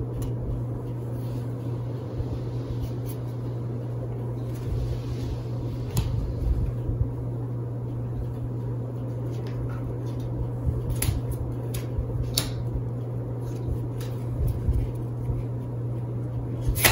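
Steady low mechanical hum, like a fan or other appliance running, with a few short light clicks scattered through it.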